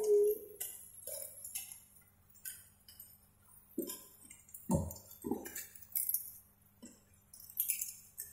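Clam shells clacking and clinking against each other and the nonstick pan as they are stirred and tossed with a spatula, in irregular bursts with a few heavier knocks, over a faint steady low hum.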